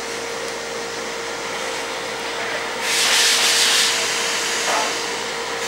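Gloved fingers rubbing over aluminium radiator fins, spreading thermal grease to seat a temperature sensor: a rubbing scrape lasting about a second, starting about three seconds in, over a steady room hum with a faint steady tone.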